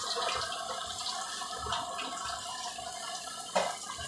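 Slime deep-frying in hot oil in a kadai: the oil sizzles and bubbles steadily, with one short sharp crackle about three and a half seconds in.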